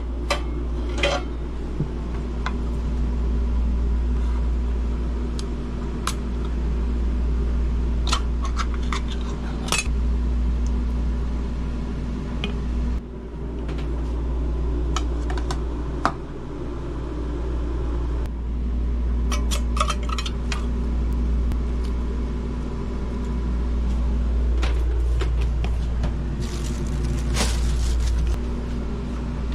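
Cookware and utensils being handled during cooking: scattered clinks and knocks of metal and dishes over a steady low hum.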